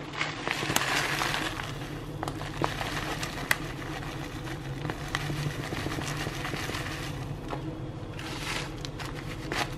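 Dry rolled oats poured from a plastic bag into a ceramic bowl: a rustling patter of flakes with the bag crinkling and scattered clicks, heaviest in the first couple of seconds and again near the end.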